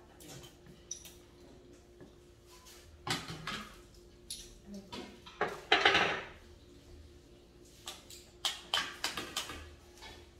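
Dishes and utensils clattering at a meal: scattered light clicks and knocks, with one louder, longer burst of noise about six seconds in.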